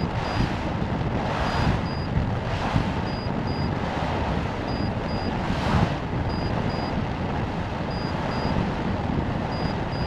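Wind rushing over the onboard camera microphone of a two-stage amateur rocket descending under its parachute, a steady rush that swells and eases every second or so. A faint pair of short high electronic beeps repeats about every second and a half.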